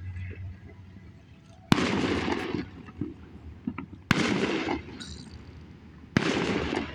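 Three small firework rockets going off about two seconds apart, each a sharp crack followed by about a second of hissing crackle.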